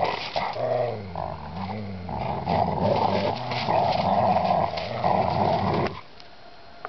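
Dogs growling as an Akita and a Labrador play tug-of-war over a stick, in long rough runs that stop suddenly about six seconds in.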